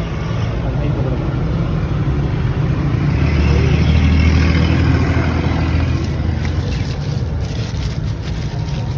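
Car running or driving: steady engine and road rumble that grows louder about three seconds in and eases off again.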